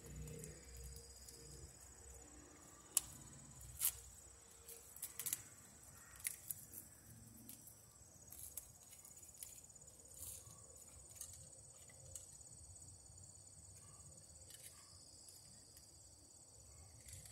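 Sharp scattered clicks and light rattles of a plastic outdoor receptacle cover and its packaging being handled, loudest twice in the first few seconds, over insects chirring steadily.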